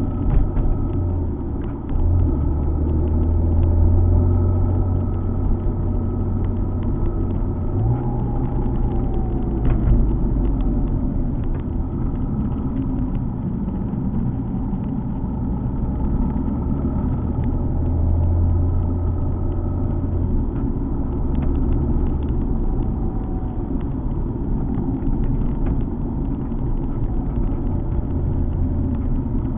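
Alfa Romeo 147 GTA's 3.2-litre V6 running under way with tyre and road rumble, a low drone whose pitch steps several times as the revs change.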